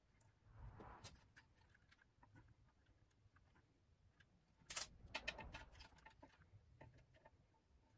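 Faint rustling and small sharp clicks of electrical wires and plastic connectors being handled and tucked into a scooter frame, with a brief flurry of clicks about five seconds in.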